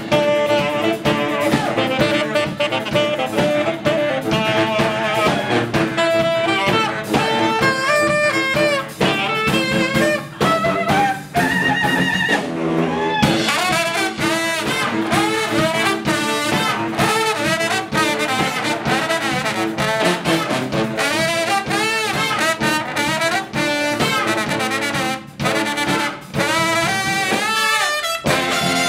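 Brass band playing a tune: trumpet, trombone, tenor and baritone saxophones and sousaphone over a drum kit, with steady drum strokes under the horn lines. About twelve seconds in, the band briefly thins to a few held notes, then comes back in together.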